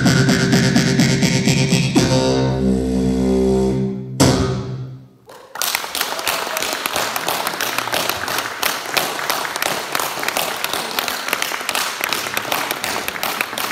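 Amplified beatboxing over sustained bass tones through a PA speaker. It ends about four seconds in with a final hit and a fading sweep. After a brief gap an audience applauds.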